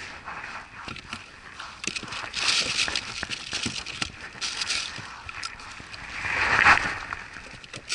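Rustling handling noise as a spinning rod is cast and worked and its reel is handled, in irregular swells with small clicks, loudest near the end.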